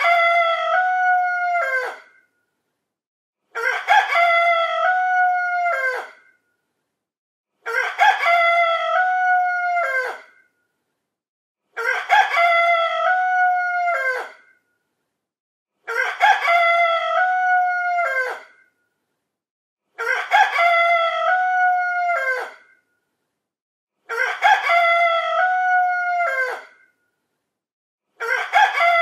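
Rooster crowing cock-a-doodle-doo about every four seconds, each crow lasting about two and a half seconds, with silence between. The crows look identical, as if one crow were looped.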